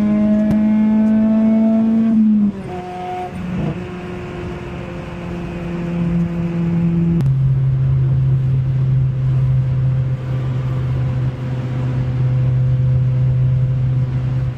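Car engine and exhaust droning at steady revs, its pitch dropping in steps about two and a half seconds in and again about seven seconds in.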